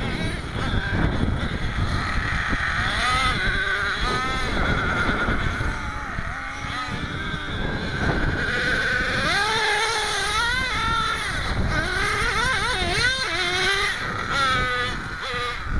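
Small nitro glow engine of a radio-controlled off-road car, revving up and down again and again as the car is driven, its pitch rising and falling in quick sweeps.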